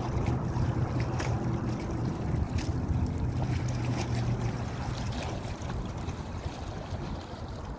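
A boat engine running steadily with a low hum, over choppy water, with wind noise on the microphone. The hum eases off a little after about five seconds.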